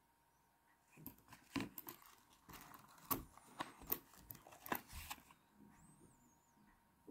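Fingers handling brass .32 S&W cartridges over their cardboard box: a run of small clicks and rustles starting about a second in and stopping after about four seconds.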